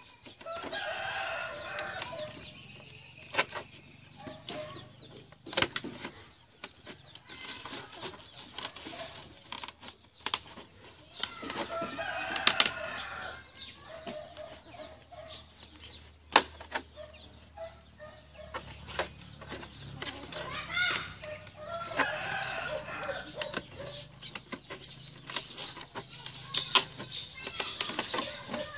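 Domestic chickens clucking on and off, with many sharp clicks and knocks scattered among the calls and a faint steady low hum underneath.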